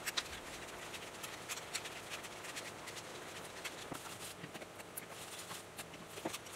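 Faint, irregular light clicks and ticks from a hand-cranked coil winding machine as wire is wound onto a coil former to rewind the generator.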